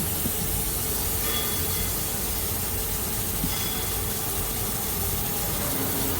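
20 kW fiber laser cutting 25 mm carbon steel plate: a steady, even hiss of the cutting jet, with a low rumble of the machine underneath.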